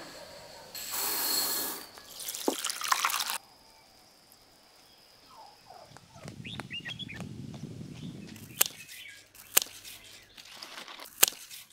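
Water splashing and dripping at first, then a few bird chirps and footsteps crunching on dry dirt. Near the end, a few sharp snips of scissors cutting through leaf stems.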